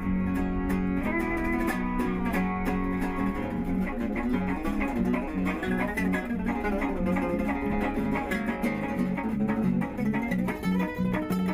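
Background music: a guitar-led instrumental with plucked strings, a steady low beat coming in a few seconds in.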